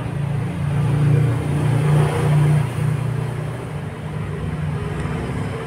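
A motor vehicle engine running with a low, steady hum that swells for the first couple of seconds and then eases back and holds.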